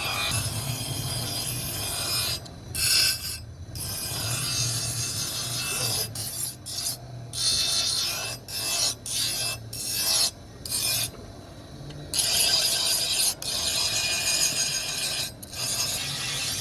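Abrasive rubbing of a steel knife blade being ground or sharpened, a rasping sound in strokes broken by short pauses, over a steady low hum.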